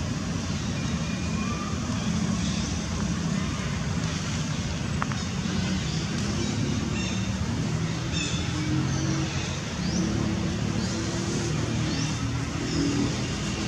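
Steady outdoor background noise: a continuous low rumble like distant traffic, with faint high chirps now and then.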